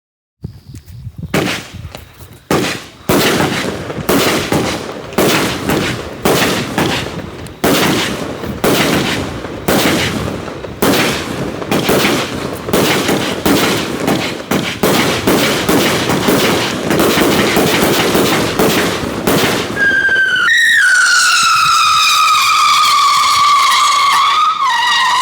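Black Cat Super Cyclone consumer firework going off: a rapid run of sharp shots and crackling for about twenty seconds, then a continuous whistle that slowly falls in pitch.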